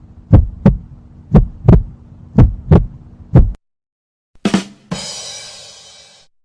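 Heartbeat sound effect: paired 'lub-dub' thumps about once a second over a low hum, stopping about three and a half seconds in. Then a single sharp hit, followed by a bright crash that fades out over about a second and a half.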